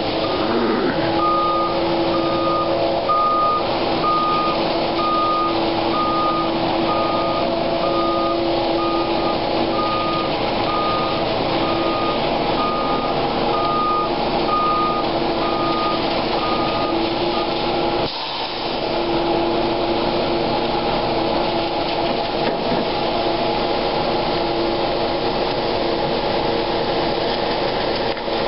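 Concrete mixer truck's backup alarm beeping in an even series, a little under one beep a second, over its steadily running diesel engine. The beeps stop about two-thirds of the way through while the engine keeps running.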